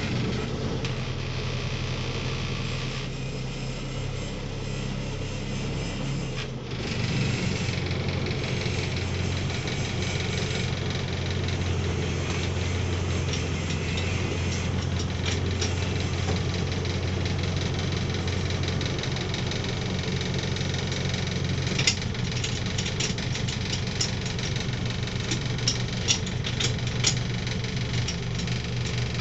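Land Rover Series engine idling steadily, heard from inside the cab. A scatter of sharp clicks comes in during the last several seconds.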